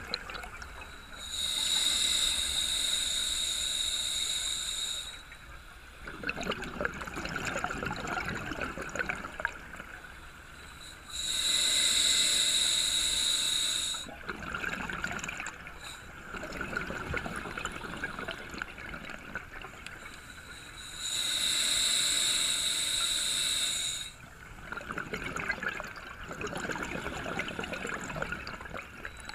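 Scuba diver breathing through a regulator, heard underwater by the diver's own helmet-less handheld camera: a steady hissing inhale of three to four seconds, then a bubbling exhale. Three breaths about ten seconds apart, and the inhale hiss is the louder part.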